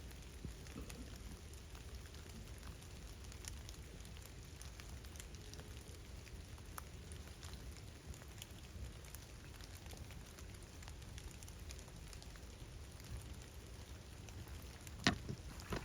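Light rain falling on leaves and ground, with many small scattered drop ticks. A single sharp click, the loudest sound, comes near the end.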